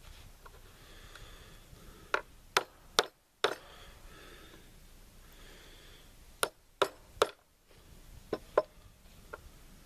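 Hammer tapping a punch to drive a pin into a rifle part: four sharp strikes about half a second apart, a pause, three more, then a few lighter taps near the end.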